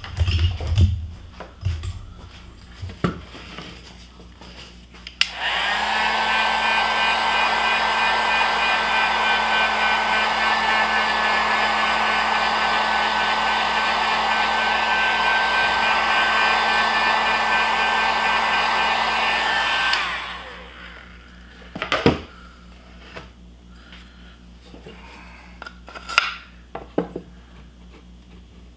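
Heat gun switched on about five seconds in and run steadily for about fifteen seconds, a blowing rush with a steady whine, then switched off and winding down. It is heating the heat-reactive ink of a pyrography burn marker so the drawing darkens into the wood. A few knocks from handling the wood come before it starts and after it stops.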